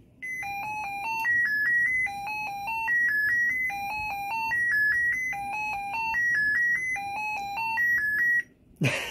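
Lenovo ThinkPad Yoga 11e laptop playing a short electronic beep tune on power-up, a quick run of clean notes at a few pitches, the same phrase repeated about five times. The tune is an error code, which the owner suspects means the missing RAM and SSD.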